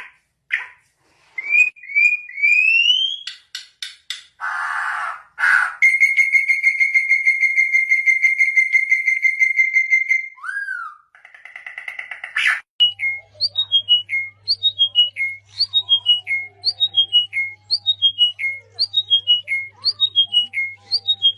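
Songbird calls in a run of different calls: a few rising whistled glides and buzzy notes, a long steady trill, then from about midway a short falling run of whistled notes repeated over and over, about once a second, with a low hum beneath.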